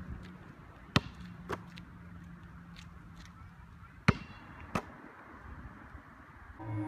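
A basketball bouncing on an asphalt court: four sharp single bounces in two pairs, about a second in and about four seconds in, over a faint steady low hum.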